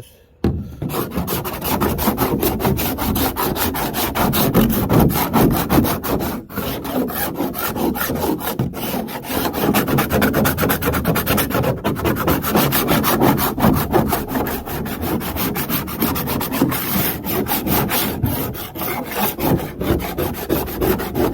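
Abrasive tool worked over the scuffed polyethylene bottom of a Pelican Apex 80 XE kayak hull: a continuous rough scraping made of rapid strokes, starting about half a second in. The hull plastic is being resurfaced where dragging over pavement wore it.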